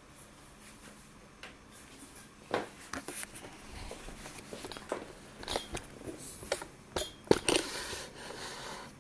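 Handling noises: after a quiet start, an irregular run of small knocks, clicks and rustles, with the loudest knock a little past seven seconds in.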